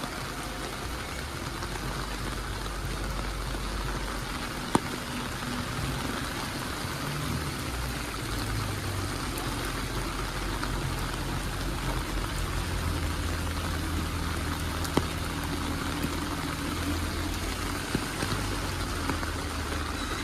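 Steady hiss of heavy rain and running floodwater, with the low hum of a vehicle engine shifting underneath and a few sharp clicks.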